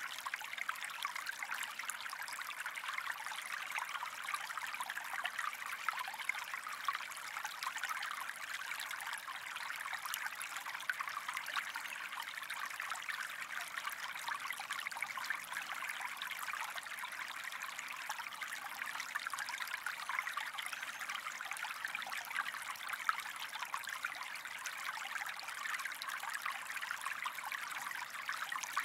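Gentle stream flowing and trickling: a steady wash of running water with fine, constant splashing and bubbling.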